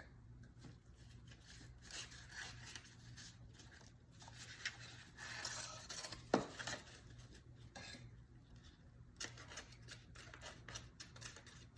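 Paper and card being rubbed and wiped by gloved hands while paper cement is worked on, a faint irregular rubbing and scraping. A single sharp tap about six and a half seconds in.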